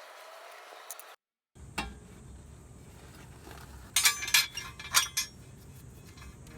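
Metal tools and parts clinking during car repair work: one sharp clink about a second and a half in, then a quick cluster of clinks around four to five seconds in, over a low steady hum.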